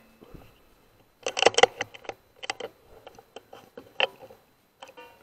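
Handling of an air rifle: a quick run of sharp mechanical clicks and clacks about a second in, then scattered single clicks and a sharper clack near four seconds.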